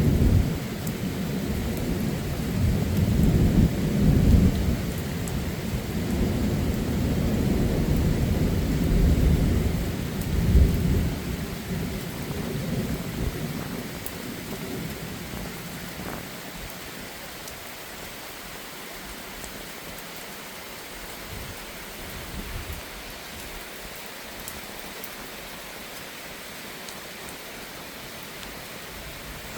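Rolling thunder over heavy rain, with several swells in the first dozen seconds before it dies away, leaving a steady hiss of rain.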